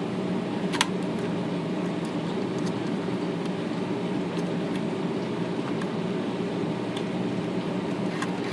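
Steady low mechanical hum with a few light clicks of small metal typewriter parts being fitted, the sharpest about a second in.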